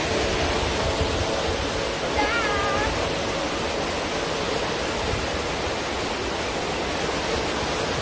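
Small waterfall on a rocky stream, water cascading over granite boulders into a pool with a steady, even rushing.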